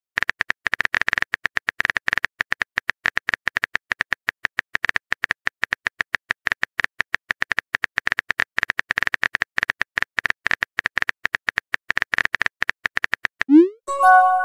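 Simulated phone-keyboard typing sound effect: a rapid, even run of key clicks as a chat message is typed, broken near the end by a short rising chime.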